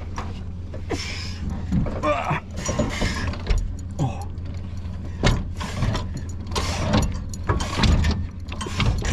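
Boat-trailer tongue jack being cranked by hand, its gearing clicking and grinding in repeated short bursts, over a steady low rumble.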